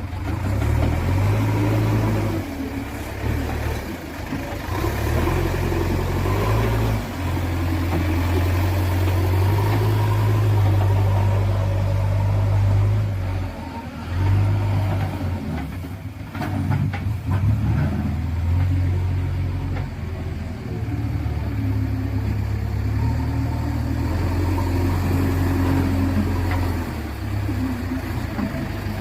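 JCB backhoe loader's diesel engine running under changing load, its low drone stepping up and down in pitch as the machine works. A few short knocks come about halfway through.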